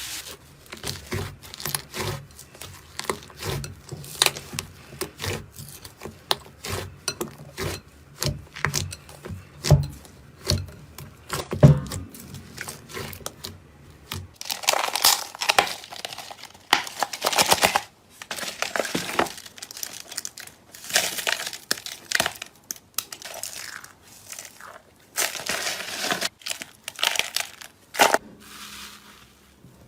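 Slime being squeezed and pressed by hand, giving a run of small sharp pops and clicks. About halfway through it changes to longer crackling, squishing bursts.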